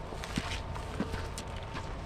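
Footsteps on a dirt trail strewn with dry fallen leaves, the leaves rustling under each step. Two sharp taps, about half a second apart, that fit a trekking pole's tip striking the ground.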